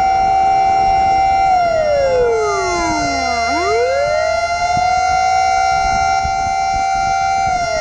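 Fire truck siren wailing: the pitch holds high, slides down over about two seconds and climbs back, then starts falling again near the end, with a steady tone sounding underneath throughout. A low vehicle rumble runs beneath.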